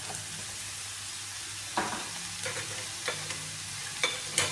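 Raw beef mince sizzling as it starts to brown in a frying pan, a steady hiss, with several short sharp clicks and knocks in the second half.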